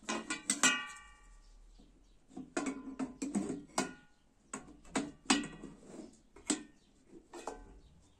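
Metal kitchenware clattering: a metal ladle knocks against a metal pan lid as it is picked up, then the lid clanks and scrapes as it is lifted off the wide pan. Sharp knocks come in several clusters, and the first, about half a second in, leaves a brief metallic ring.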